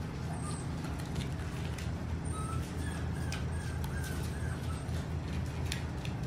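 Saluki puppies' claws clicking and scrabbling on a vinyl floor as they chase and wrestle, over a steady low hum. Faint short chirps sound a few times.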